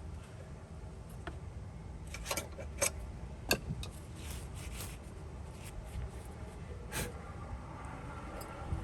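A few light, sharp taps and clicks, spaced irregularly, as a new plastic door hinge liner is tapped into a Jeep JK door hinge, over a steady low rumble.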